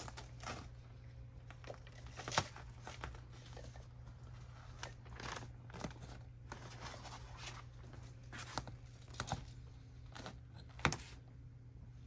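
Mattress fabric and foam layers being pulled and torn apart by hand, in scattered rustles and rips, the sharpest about two seconds in and again near the end, over a steady low hum.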